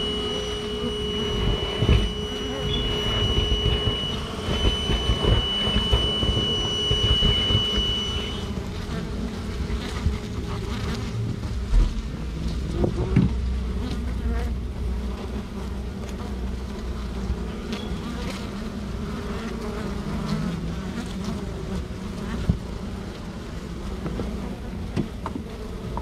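Honeybee colony buzzing steadily around exposed comb in a ceiling cavity, close to the microphone, with occasional knocks and crackles as the comb is handled. A steady high tone sounds over the buzz for about the first eight seconds.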